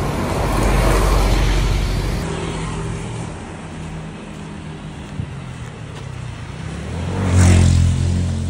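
A large sleeper coach bus drives past close by, its engine and tyres loudest about a second in. Near the end another motor vehicle passes close, with a low engine tone swelling up and fading.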